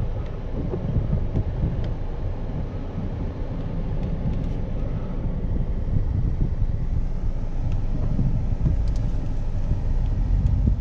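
Car interior noise while driving slowly: a steady low rumble of engine and tyres on wet pavement, heard from inside the cabin.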